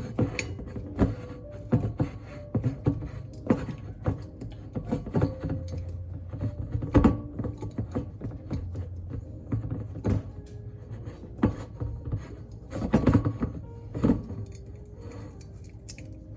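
Background music with a steady beat and held notes, mixed with a few louder knocks.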